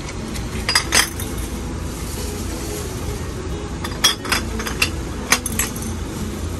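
Glass bottles clinking against each other as they are put into a recycling crate: two clinks about a second in, then a quick run of about five more near the end, over a steady low rumble.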